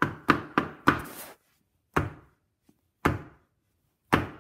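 Heavy knocks on wood in the traditional French theatre 'trois coups' pattern that signals the start of a play: four quick knocks in the first second, then three slow single knocks about a second apart.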